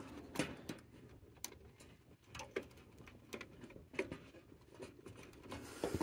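Faint, irregular clicks and rustles of fingers handling the tankless water heater's wiring harness and plastic wire connectors.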